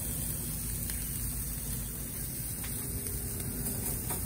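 Ribeye steaks sizzling on a very hot propane grill's searing grate, a steady hiss over a low steady hum.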